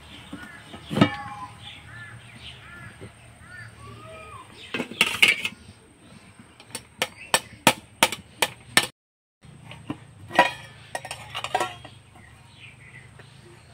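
Stainless steel kitchenware clinking and knocking: a lidded steel bowl handled with a steel spatula and set down on a steel plate. A quick run of sharp metal taps, about four a second, comes about midway.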